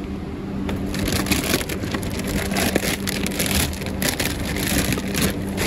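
Large plastic bag of frozen crinkle-cut fries crinkling and crackling as it is handled and pulled out of its cardboard box, starting about a second in, over a steady low hum.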